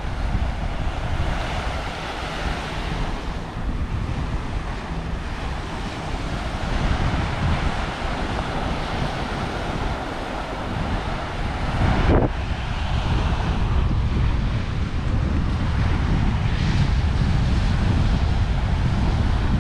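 Small ocean waves breaking and washing up on a sandy shore, with wind buffeting the microphone in a low rumble that grows stronger in the second half. A brief bump about twelve seconds in.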